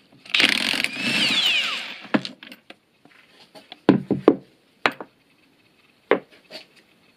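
A 3/4-inch impact wrench hammering for about two seconds with its motor pitch sliding, spinning off a left-hand-thread shaft nut on a transmission case. It is followed by a handful of separate sharp metal knocks.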